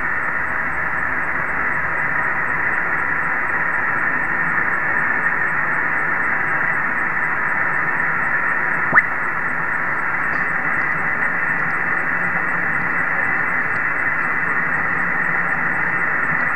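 Kenwood TS-850S HF receiver on 27.580 MHz upper sideband giving a steady rush of band static, with faint steady tones in the hiss. About nine seconds in, a short whistle sweeps upward.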